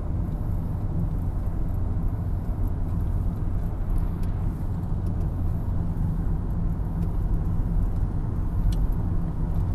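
Taxi driving along an open highway, heard from inside the car's cabin: a steady low rumble of engine and tyre noise.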